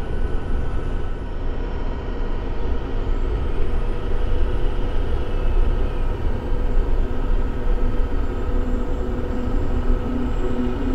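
Steady cab noise of an FMTV 6x6 expedition truck driving on a gravel road: a deep engine and drivetrain rumble with a constant hum and tyre noise, heard from inside the cab.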